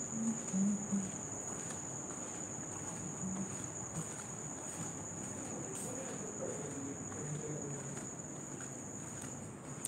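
Crickets trilling steadily: one continuous high-pitched trill that does not stop, with a faint low murmur beneath.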